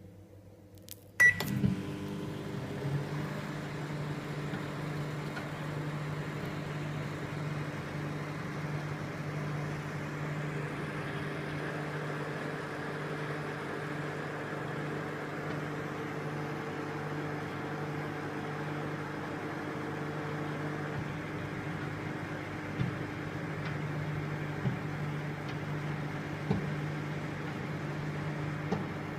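Microwave oven switched on with a click and a short beep about a second in, then running with a steady hum. A few light knocks come near the end.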